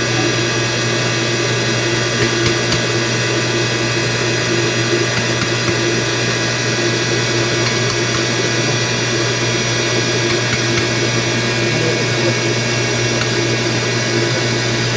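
Steady drone of running machinery: a strong low hum with many constant tones above it, unchanging throughout.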